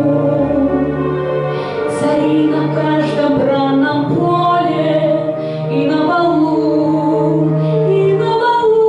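A woman singing a song over a backing track, holding long notes above a steady bass line.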